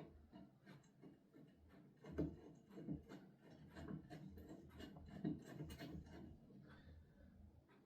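Faint rubbing and small irregular clicks of metal parts being handled as Allen-head bolts are threaded in to fix an angle-grinder chop-saw rig to its base.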